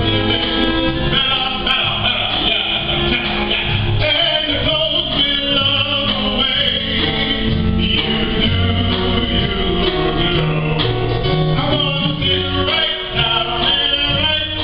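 Live jazz band of piano and upright bass playing, with a voice singing over it.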